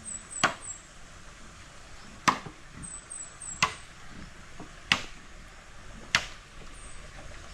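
A series of five short, sharp taps or clicks, spaced about a second and a quarter apart, over a faint background with a few brief high chirps.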